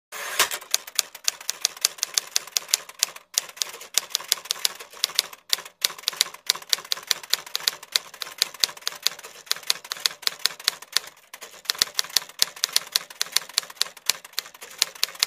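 Typewriter keystroke sound effect, a rapid run of sharp clacks, several a second, with a few short breaks, keeping time with on-screen text being typed out letter by letter.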